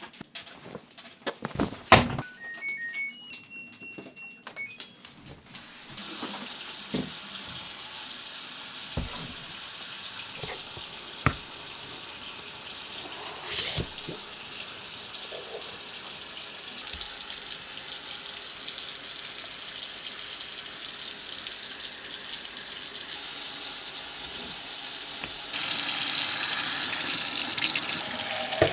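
Kitchen tap running steadily into a sink, with dishes clinking now and then; the flow gets louder and harsher near the end. Before the water starts there are a few clicks and some short high tones.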